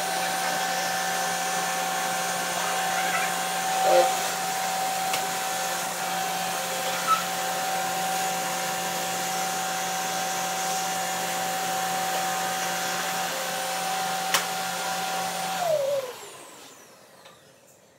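Stick vacuum cleaner running steadily with a motor whine, with a brief louder surge about four seconds in. It is switched off near the end, and its whine falls in pitch as the motor winds down.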